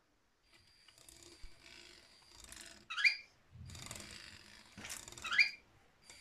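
LEGO WeDo 2.0 motor and plastic gear train running as the inchworm robot crawls, a whirring, rattling mechanism sound. Twice, about three seconds in and again near five and a half seconds, there is a short rising squeak, the loudest sound, once per crawl cycle.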